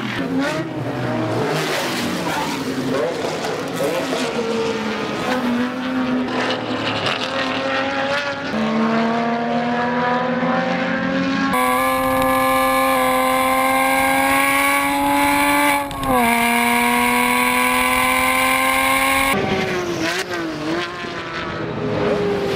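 Porsche Cayman race cars' flat-six engines at racing speed: several cars going by with their pitch sliding up and down, then the onboard sound of one engine pulling hard with its pitch climbing steadily and a brief dip in the middle, before cars go by again near the end.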